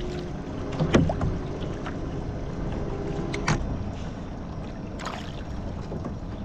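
Small waves lapping against a fishing kayak's hull, a steady low wash. Two sharp short knocks stand out, the louder about a second in and another about three and a half seconds in.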